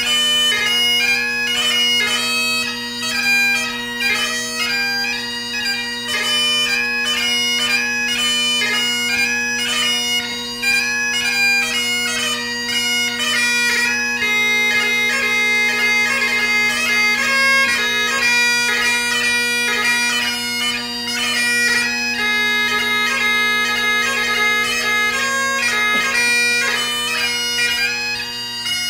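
Great Highland bagpipe played solo in a ceol beag (light music) set: the drones sound one steady unbroken chord beneath a fast-moving chanter melody full of quick note changes.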